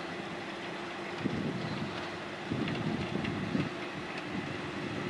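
SM42 diesel shunting locomotive running slowly with a train of empty flat wagons: a steady low engine drone with rail clatter and a few short knocks from the wagons partway through.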